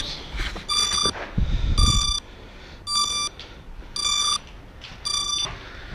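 An electronic beeper sounding short, shrill beeps about once a second. A brief low rumble comes about a second and a half in.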